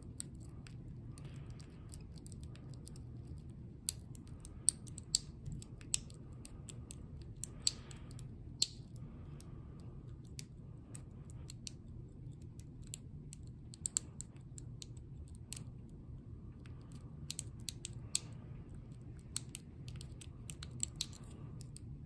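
Sharp, irregular metallic clicks and ticks of a lock pick working the pin stacks of a small Lockwood pin-tumbler padlock held under tension, with no pin setting. A steady low hum runs underneath.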